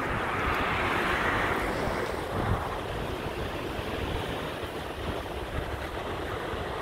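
Wind buffeting the microphone with a gusty low rumble, under a wash of outdoor noise that swells for about two seconds near the start and then settles.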